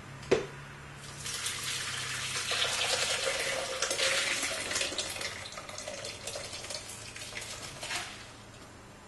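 Hot broth soup with kale and beans poured from a stockpot into a slow cooker: a steady splashing pour that swells in the middle and tapers off near the end. A single knock just before the pour begins.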